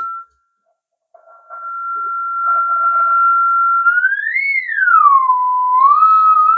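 Steady test tone from a signal generator played through a Stella ST234A valve radio's loudspeaker. It cuts out briefly near the start, comes back, then glides up, down and up again in pitch before settling on a higher note. The tone comes through clean, with no mixing: the radio is working after its repair.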